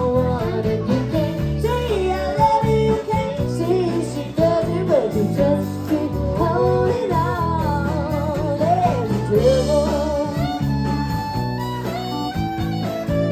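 Live country band playing: a woman singing the melody over strummed acoustic guitar, fiddle and bass.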